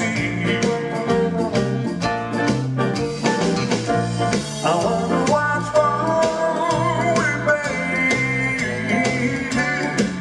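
Live song: a man singing and playing a grand piano with a backing band, over a steady bass line and a regular beat.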